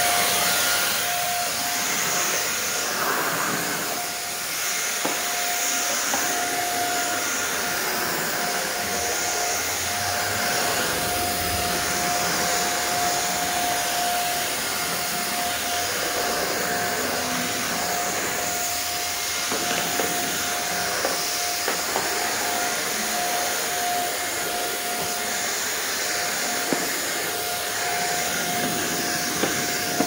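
Hand vacuum cleaner with an extension stick and floor nozzle running steadily as it is pushed over a hard floor. It makes an even rushing hiss with a constant whine, and a few small ticks in the second half.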